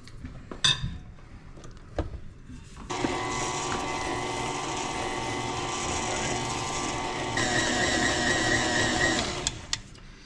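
Electric stand mixer switched on about three seconds in and running steadily, beating a thick cream cheese and crab mixture, stepping up to a higher, louder speed about seven seconds in, then switched off near the end. A few light knocks come before it starts.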